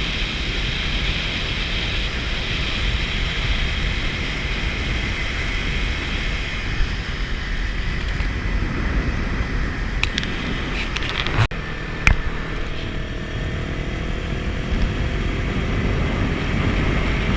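Motorcycle running at road speed, with heavy wind rush on the camera microphone. There is a short break about eleven seconds in, after which an engine note can be heard gliding in pitch.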